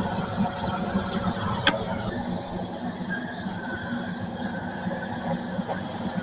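Vacuum cleaner running steadily, drawing air through a bucket cyclone dust separator: a continuous drone of air and motor with a thin whistling tone. A single sharp click comes a little under two seconds in, likely debris striking inside the separator.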